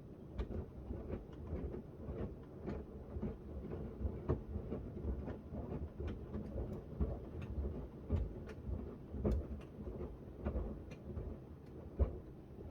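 Miele W1 front-loading washing machine with its drum turning during a wash, a small load of shirts tumbling and sloshing in the water with irregular soft thuds and clicks.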